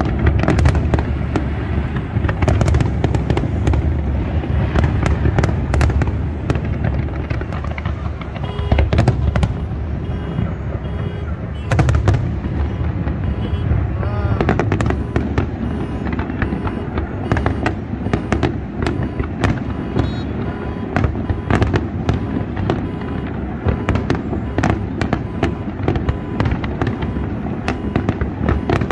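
Large aerial fireworks display: a dense, unbroken run of sharp bangs and crackling bursts over a deep rumble.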